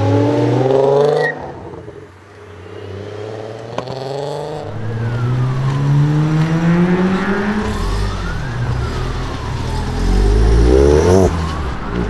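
A Volkswagen Golf performance car's engine revving hard, the revs cut off suddenly about a second in. After a short lull with a single sharp pop, it climbs through the revs again over a couple of seconds and eases off. Near the end it revs high once more and cuts off abruptly.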